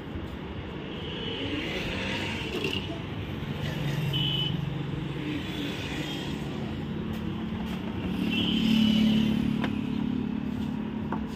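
Engine drone of road traffic, swelling twice and loudest toward the end.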